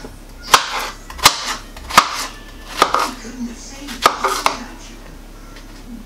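Kitchen knife cutting peeled summer squash into chunks on a cutting board: about six sharp knocks of the blade striking the board, roughly one a second, then stopping.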